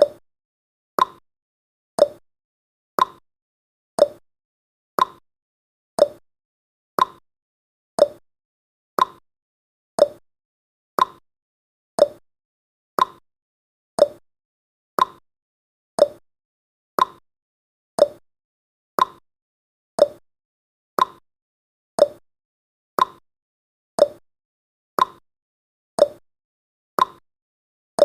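Clock-style ticking sound effect of a countdown timer: one short tick each second, alternating between a higher and a lower tick like a tick-tock.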